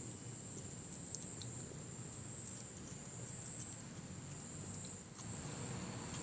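Kitten eating, with faint scattered small clicks of chewing. A steady high-pitched whine runs underneath.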